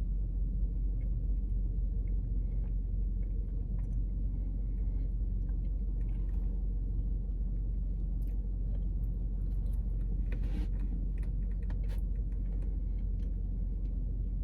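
Steady low rumble, with faint clicks and soft chewing from someone eating a dry donut.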